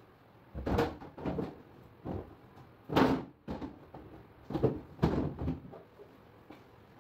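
Clear plastic refrigerator crisper drawer knocking and scraping against the fridge's plastic liner and rails as it is fitted back into the bottom compartment: a string of short clattering knocks, the loudest about three seconds in.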